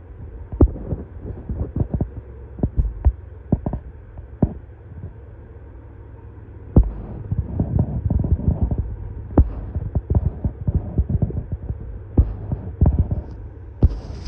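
Freight train passing: a steady low rumble with irregular metallic clacks and knocks, thickest through the middle of the stretch.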